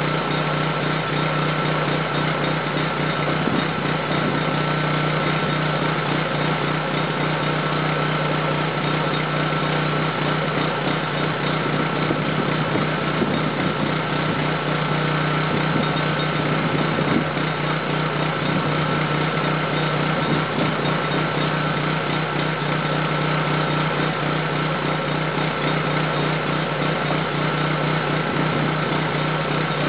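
Generator engine running at a steady speed, a constant unchanging hum with a high whine in it.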